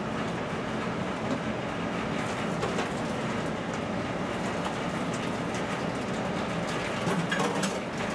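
Steady rushing mechanical drone with a faint low hum, and a few light clicks and knocks, more of them near the end.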